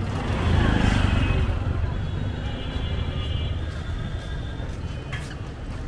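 Street traffic rumble, with the small engine of a CNG auto-rickshaw running close alongside and loudest about a second in, then easing off.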